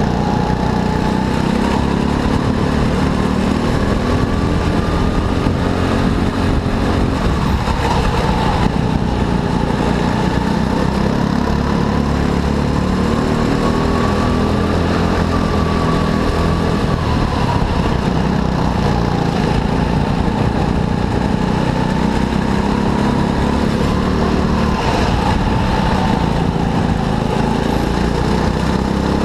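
Go-kart engine running continuously under way, its pitch slowly rising and falling as the kart speeds up and slows.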